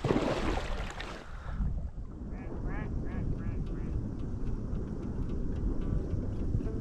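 A loud rustling noise, then a quick series of about five mallard quacks a couple of seconds in, over steady low wind noise on the microphone.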